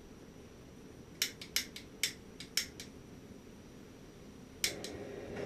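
Several sharp clicks in quick succession, then a pause and two more clicks near the end, over a faint background.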